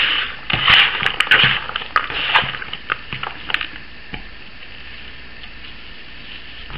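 Gloved hands mixing ground beef with mushrooms and onion in a plastic bowl: irregular squishing and rustling that stops about three and a half seconds in, leaving a faint steady hiss.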